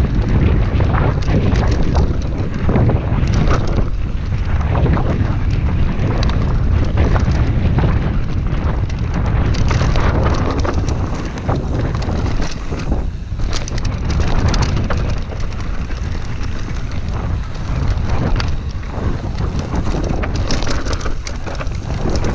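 Wind buffeting the camera microphone over the rumble of a Commencal Meta V4 mountain bike descending a rough dirt trail at speed, with frequent short knocks and rattles from the bike as it goes over bumps.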